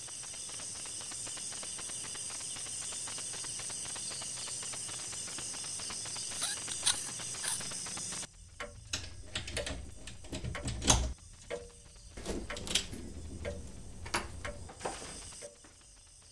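Quiet room tone with a steady hiss and a faint high whine. About eight seconds in, this gives way to scattered soft clicks and knocks of quiet movement, with a few sharper taps.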